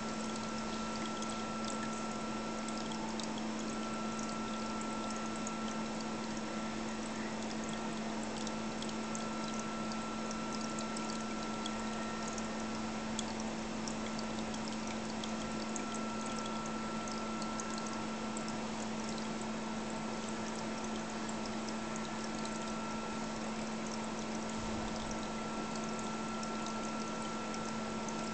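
Aquarium hang-on-back filter pouring its outflow into the tank in a continuous splashing trickle, over a steady hum.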